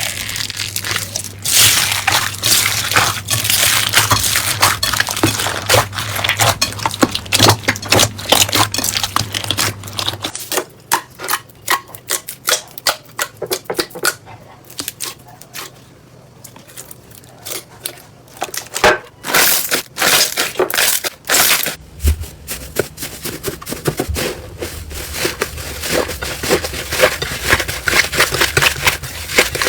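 Slime being squished and worked, a dense run of crackles and pops, sparser and quieter for a stretch in the middle.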